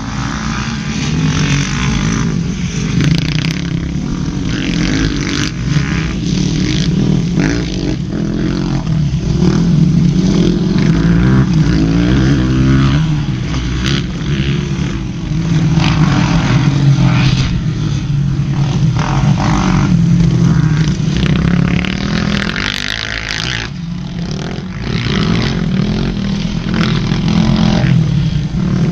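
Motocross dirt bike engines revving and running on the track, the pitch rising and falling again and again as the riders accelerate and back off.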